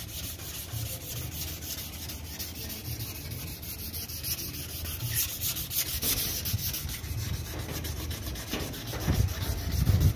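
Sandpaper rubbing back and forth by hand over the primed steel body shell of a Vespa Sprint, wet-sanding the primer in quick, even strokes. A few heavier low bumps come near the end.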